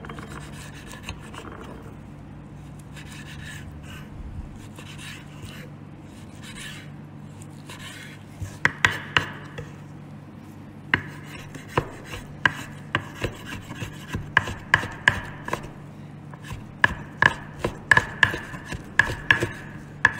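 A knife cutting raw trout fillet on a wooden cutting board. At first come soft, drawn slicing strokes; from about eight seconds in, the blade knocks sharply on the board, about two strikes a second, as the strips are diced into cubes.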